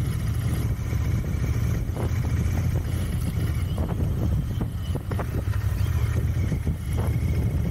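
Royal Enfield Continental GT 650's 648 cc parallel-twin engine running steadily as the motorcycle rides along, mixed with wind rush.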